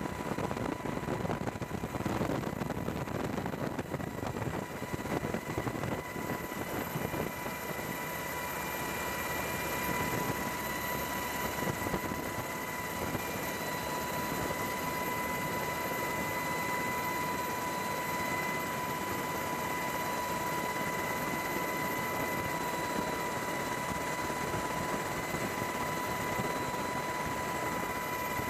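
Helicopter cabin noise heard from inside the aircraft as it carries an underslung cargo load: a steady rotor and engine drone with a constant high whine. The low rumble is rougher and more uneven for the first few seconds, then settles.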